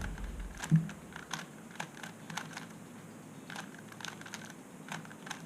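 A 3x3 Rubik's cube being turned quickly by hand, its plastic layers clicking in an irregular run of several clicks a second, with one duller knock about a second in, as a move sequence for flipping two edges is carried out.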